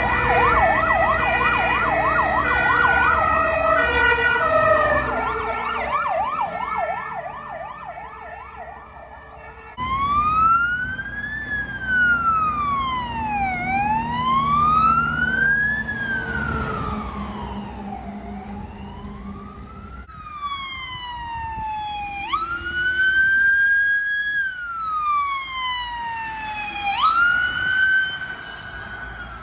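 Emergency-vehicle sirens from a fire engine and an ambulance responding. First a fast yelp, several cycles a second, over steady tones. About ten seconds in it becomes a slow wail rising and falling every few seconds. From about twenty seconds a siren climbs sharply, holds and slowly falls, twice.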